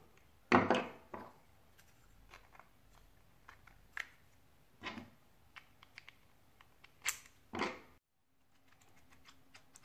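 Hand assembly of a 3D-printed plastic phone mount: a screwdriver and plastic parts clicking and knocking at scattered moments, the loudest knock about half a second in. Near the end the sound cuts off and a faint low hum is left.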